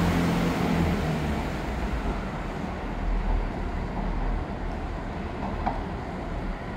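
Chiltern Railways Class 165 diesel multiple unit pulling away, its engine hum and wheel rumble fading as it draws off into the distance.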